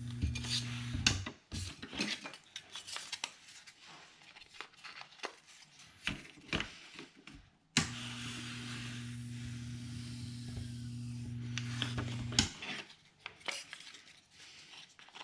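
Proxxon hot-wire foam cutter humming while switched on; it cuts off sharply about a second in and comes back on about halfway through for some five seconds. In between and after, foam blocks and the wooden guide scrape, rub and click on the cutting table.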